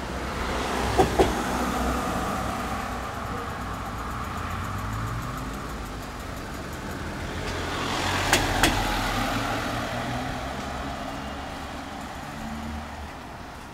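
Road traffic: two vehicles pass close by, several seconds apart, each rising and fading with a quick double knock at its loudest.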